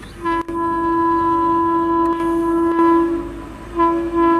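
Horn of a WAP-7 electric locomotive sounding one long steady blast, then a shorter second blast near the end, as the train approaches at speed.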